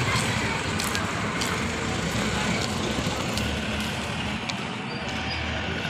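Road traffic: a steady mix of engines from passing three-wheeler auto-rickshaws and trucks.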